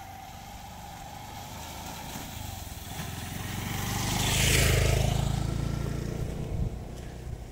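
Small motorcycle riding past along a muddy dirt road: its engine grows louder as it approaches, is loudest as it passes close about four and a half seconds in, then fades as it moves away.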